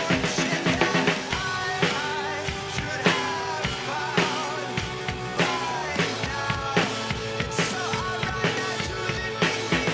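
Rock band music with a drum kit keeping a steady beat under a bending melody line.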